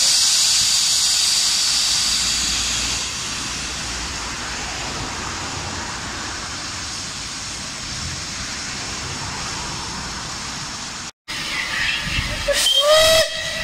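Unrebuilt Bulleid West Country class steam locomotive 34092 City of Wells standing with steam hissing off, loudest over the first few seconds and then steady. The hiss breaks off at a cut near the end, after which a short rising pitched sound is heard.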